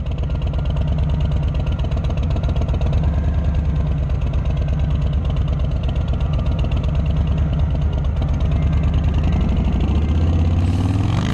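2018 Harley-Davidson Street Bob's Milwaukee-Eight 107 V-twin idling with an even, pulsing beat. Near the end the throttle is opened and the revs climb.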